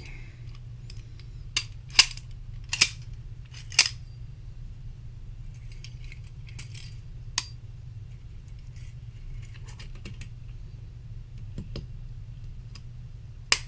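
Steel 1911 pistol parts (slide, frame, guide rod and recoil spring) being fitted together by hand, making sharp metal clicks and clinks with light scraping between. A cluster of clicks comes in the first few seconds, another about halfway, and a loud click near the end.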